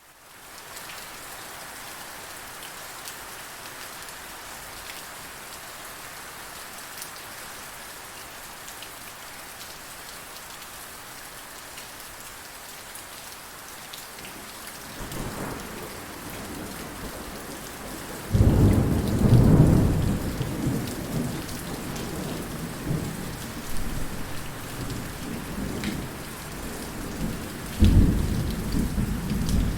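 Steady heavy rain, with thunder building as a low rumble about halfway through, then a sudden loud thunderclap rolling on a few seconds later, and another sharp clap near the end.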